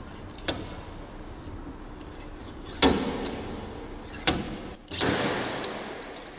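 Sharp metallic knocks of a long metal tool driven against the lower body panel of a VW Golf Mk2, four blows, each ringing briefly in the sheet metal; the last and loudest rings on for about a second. It is rough force used to free a stuck part from the body.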